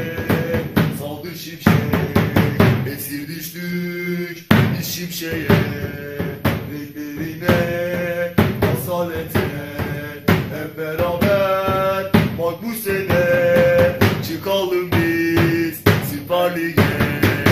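Instrumental stretch of a football supporters' chant: a drum kit beating steadily under a held, stepwise melody line, with no singing.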